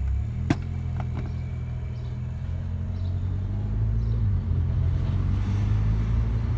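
Mk5 Volkswagen Golf GTI's 2.0-litre turbocharged four-cylinder running at low revs, with a single sharp click about half a second in. The engine sound grows slightly louder toward the end.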